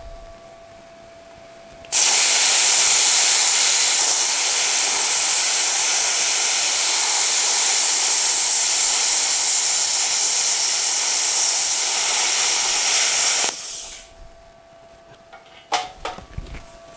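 Handheld plasma cutter cutting through quarter-inch steel plate: a loud, steady hiss that starts suddenly about two seconds in and cuts off about eleven seconds later. A few sharp knocks follow near the end.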